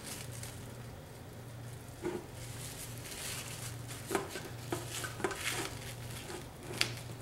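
Plastic wrap crinkling and rustling as it is lifted and handled over pie dough, with a few short taps and clicks against the foil-lined pan.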